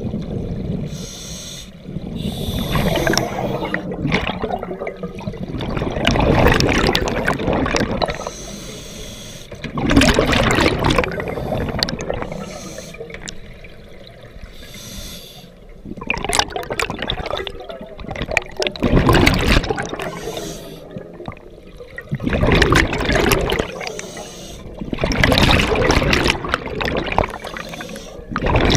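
Scuba diver breathing through a regulator, heard underwater: a hiss of air on each inhale, then a burst of bubbles gurgling out of the exhaust on each exhale, repeating in surges every few seconds.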